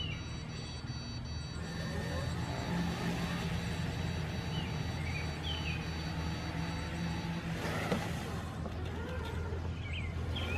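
Robomow RS622 robotic lawn mower starting up: a rapid series of high beeps sounds for about seven seconds over its steady motor hum, which grows louder about two seconds in. Birds chirp briefly.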